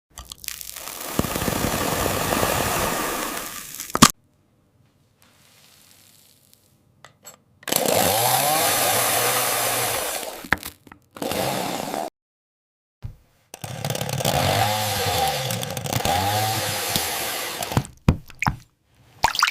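AI-generated chainsaw sound cutting into sweets, running in three main bursts of a few seconds each, with short bursts and clicks in the gaps between. A sharp crack ends the first burst, and the pitch wavers up and down through the later two.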